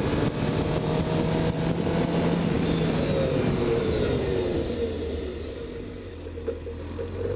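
Suzuki GSX-R750's inline-four engine running on the road with wind rushing over the microphone. About five seconds in, the engine note drops lower and the sound eases off.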